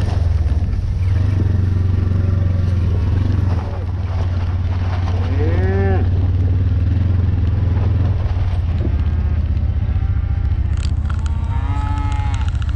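Cattle mooing: one drawn-out moo about five to six seconds in and another near the end. Under them runs the steady low hum of a vehicle engine.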